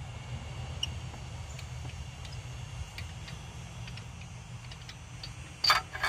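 Scattered light clicks of hand tools on metal, with a louder short clank near the end, over a steady low hum.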